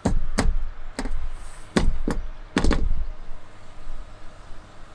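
An aluminium-framed solar panel knocking and bumping against a van's ribbed metal roof and roof rails as it is pushed across. The knocks and thuds come in a quick run, busiest in the first three seconds and sparser after.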